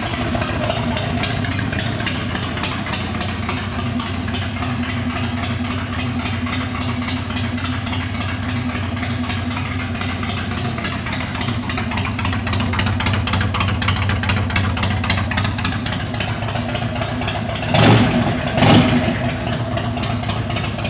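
2002 Harley-Davidson Dyna Super Glide's Twin Cam 88 V-twin idling steadily through aftermarket exhaust pipes. It is blipped twice in quick succession near the end.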